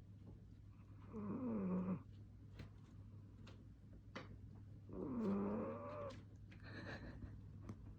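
Pet cat snoring in its sleep: two drawn-out, laboured-sounding snores about four seconds apart, each falling in pitch.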